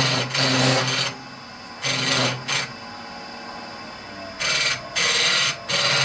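Hollowing cutter scraping into a horse chestnut hollow form spinning on a wood lathe, in repeated short bursts of cutting: one long and one short in the first half, then three close together near the end. Between cuts the lathe keeps running with a steady low hum.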